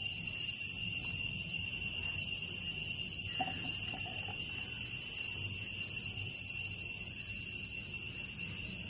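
A steady high-pitched tone, unbroken, with fainter higher overtones, like an alarm or whine. Under it, a soft low rush of thick coconut shake being poured from a steel vessel into glasses.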